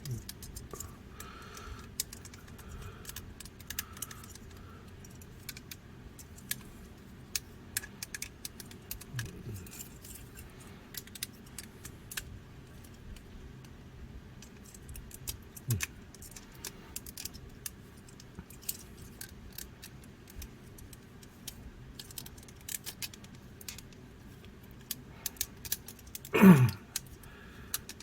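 Small clicks and rattles of a transforming robot figure's parts being moved and pushed into place by hand, scattered irregularly, with one brief louder sound near the end.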